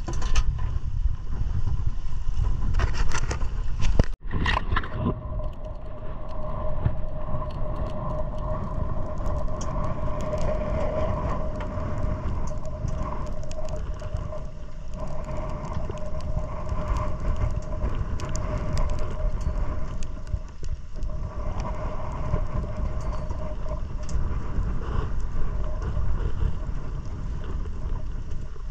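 Wind noise on the microphone over a small boat's motor running steadily with a constant whine. A few knocks and scrapes in the first few seconds.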